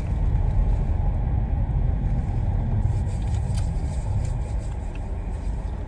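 Steady low rumble of a car, heard from inside its cabin, with a few faint small clicks a little past the middle.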